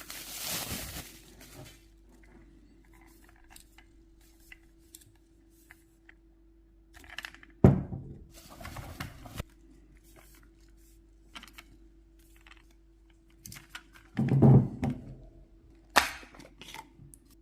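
Unboxing handling noise: a paper rustle, then scattered knocks, thuds and a sharp click as packaging and the grinders are handled and set down, over a faint steady hum.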